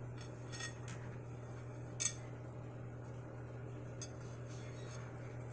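A few faint clicks and one sharper clink about two seconds in, from a plate being handled, over a steady low hum.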